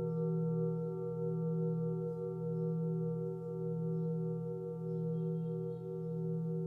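Himalayan singing bowl ringing with layered, sustained tones, some low and some higher, and an even pulsing wobble of about three beats a second.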